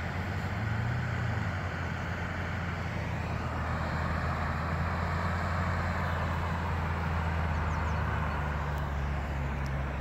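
Off-road 4x4's engine running steadily as it drives across a muddy field, a low even drone.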